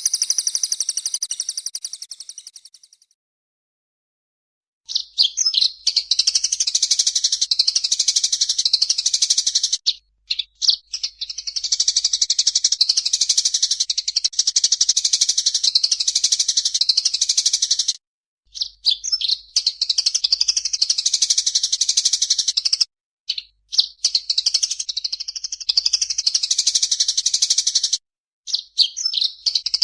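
Recorded songbirds singing in long, dense phrases of rapid high-pitched chirps and trills. The song fades out over the first few seconds, stops for about two seconds, then resumes, breaking off abruptly a few more times. The birds belong to a mix of murai air, cililin, tree sparrow and canary songs, used as training audio for cage birds.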